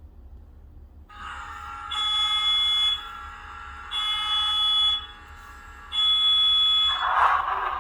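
Digital sound decoder's diesel locomotive horn from a model locomotive's speaker: a multi-note chord that comes in about a second in and swells into three louder blasts. Near the end a loud rushing noise sets in over it.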